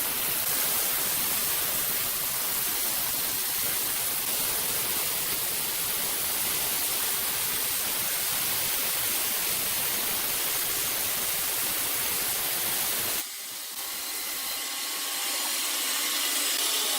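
Steady hiss of noise with a few faint whining tones. About 13 seconds in it dips briefly, then goes on thinner, without its low rumble.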